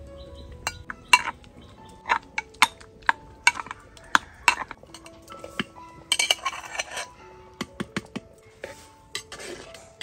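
A metal slotted spoon clinking and scraping against a cooking pot and a metal mug, a dozen or so sharp clinks over the first five seconds. About six seconds in comes a short rush of liquid being poured from the mug into the pot. Soft background music with sustained notes plays underneath.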